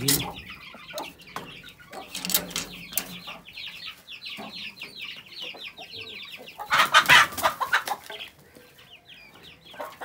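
Chickens clucking continuously, a busy run of short calls, with a few louder noisy bursts, the loudest about seven seconds in.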